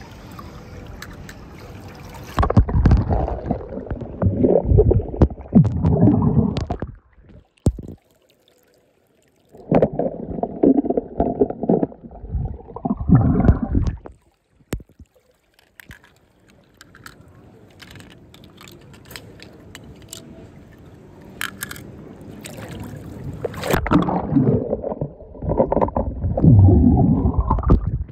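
Swimming-pool water sloshing and splashing as a hand stirs toy cars through it at the waterline. It comes in three loud spells of a few seconds each, with quieter lapping between them.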